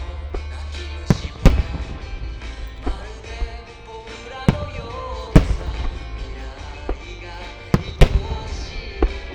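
Aerial firework shells bursting in a string of sharp bangs at uneven intervals, about eight in all, over music with a steady beat.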